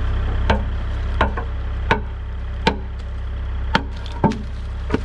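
Hammer blows on the saw-cut end panel of a precast concrete catch basin, knocking it out: about eight sharp strikes at uneven intervals until the panel breaks loose. A steady low drone runs underneath.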